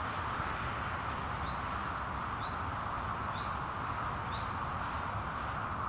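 Steady outdoor background noise in an open field, with a small bird repeating a short, high chirp about once a second.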